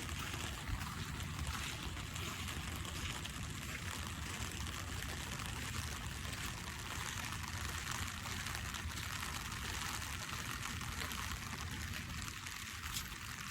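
Steady rain falling: a constant watery hiss with a low rumble underneath.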